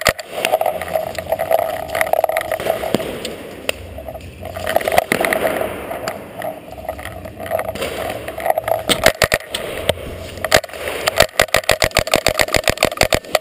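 Paintball markers firing, scattered single shots and then a fast burst of about seven shots a second near the end, over rumbling movement noise.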